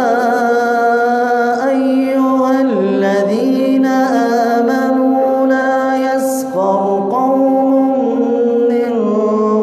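A man reciting the Quran aloud in a slow, melodic chant. He holds long notes and shifts pitch between phrases.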